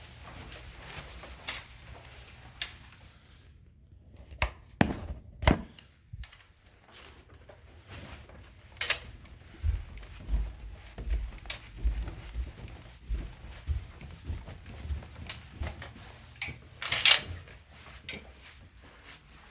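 Scattered sharp knocks and thuds, the loudest a pair about a second apart and one more near the end, with a run of soft low thumps about twice a second in the middle. No vacuum motor is running.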